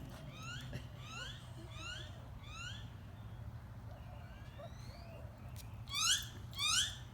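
A series of short, rising, whistle-like animal cries, about one every two thirds of a second, growing much louder three times near the end.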